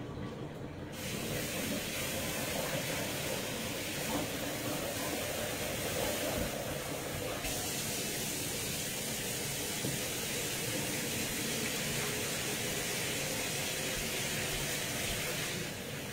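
Water running steadily from a kitchen tap into the sink, a constant hiss that starts about a second in and stops shortly before the end.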